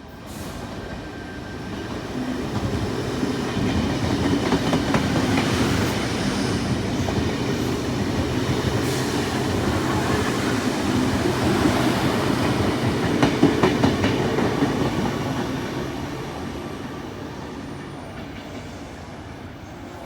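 A Sydney Trains electric passenger train passes, its rumble growing over the first few seconds, loud through the middle and fading away in the last few seconds. Its wheels click over the rail joints.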